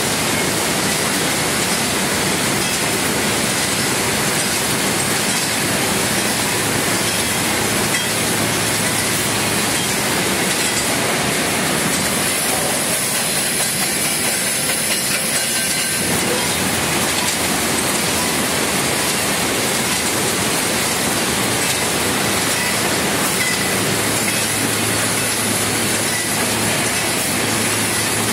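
Automatic wire mesh welding machine running: a loud, steady mechanical din from its wire feed and welding heads.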